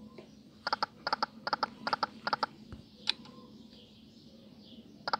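Online slot machine game 5 Dazzling Hot making its reel-stop sound effects: a quick series of short ticks, mostly in pairs, as the reels stop one after another. A single tick comes about three seconds in, and another short run of ticks near the end.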